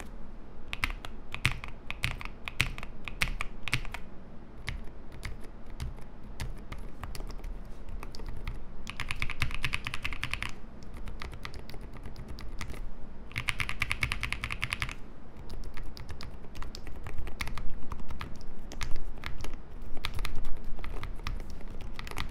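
Typing on an Epomaker TH40 40% gasket-mount mechanical keyboard, starting on Nude Rosa silent switches: a continuous run of muted keystrokes. Two stretches of faster, denser key presses come about nine and thirteen seconds in, and the strokes grow louder over the last few seconds.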